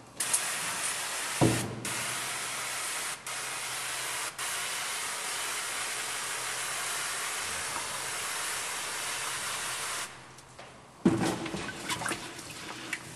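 Water sprayed from a sprayer nozzle onto a wet stone surface being honed, a steady hiss for about ten seconds with a few brief breaks. A few sharp knocks follow near the end.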